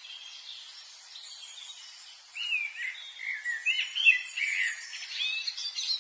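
Birds singing in a forest: faint chirps at first, then from about two seconds in a run of quick, twittering, gliding phrases, over a faint steady hiss.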